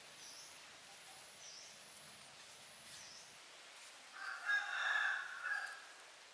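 A loud, drawn-out bird call starting about four seconds in and lasting about two seconds. Under it, faint high chirps repeat about every second and a half.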